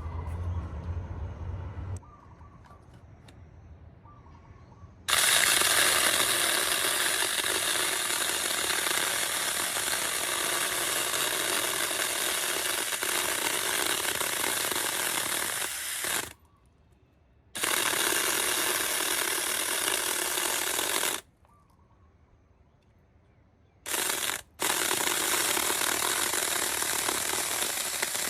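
A 4-inch battery-powered mini electric chainsaw running in bursts while cutting tree branches. It starts about five seconds in, stops briefly twice (once for about a second, once for about three seconds with a short blip at the end of the pause), then runs again.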